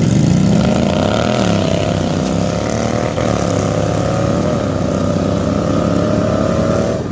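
Two racing lawn tractors launching off the line and accelerating away at full throttle, the engine note rising, dipping briefly about one and three seconds in, then holding high. The sound cuts off near the end.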